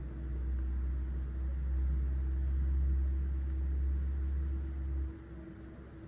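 A low rumble that cuts off suddenly about five seconds in, over a steady low hum.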